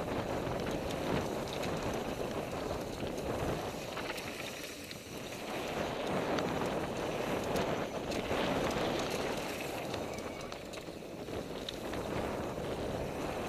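NS Bikes Soda mountain bike rolling fast down a dirt flow trail: a steady rush of tyres on loose dirt, with rattling from the bike and wind buffeting the microphone.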